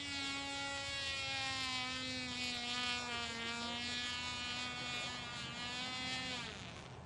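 Cox Black Widow .049 glow engine on a radio-control model plane in flight, running at high revs with a high-pitched whine. About six and a half seconds in, its pitch falls away and it cuts out: the engine has quit, leaving the plane dead stick.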